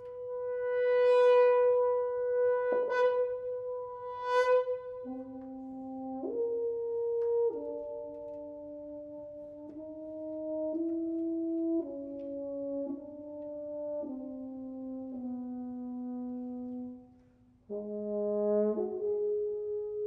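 A trio of French horns playing: first a single high note held and re-struck twice, then slow-moving held chords that change about once a second. There is a brief break near the end before the chords resume.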